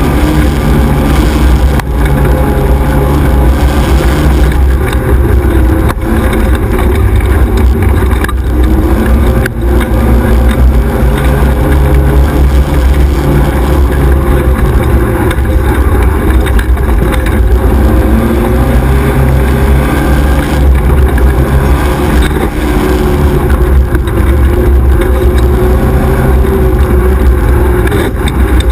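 XY 1100R 4x4 buggy's engine running hard, its pitch rising and falling with the throttle as it is driven fast over a rough dirt trail. A few sharp knocks come through, heard very loud from on board.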